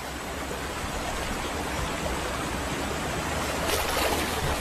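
River water splashing and churning as a Nile crocodile holds a struggling wildebeest under, with a few sharper splashes about four seconds in.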